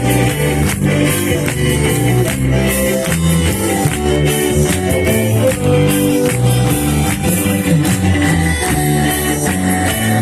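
Band playing a praise song live, with guitar, bass and a steady drum beat.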